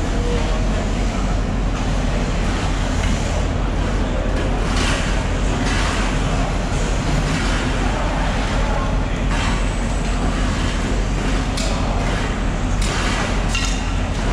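Busy fish-market floor ambience: a steady low machine rumble under background voices, with a few sharp knocks and clatters.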